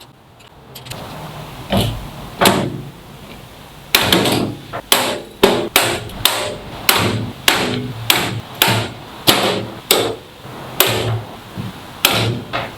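Hammer striking the aluminium sheet metal of a Ferris wheel tub: two separate blows, then a steady run of strikes at about two to three a second, each with a short ring.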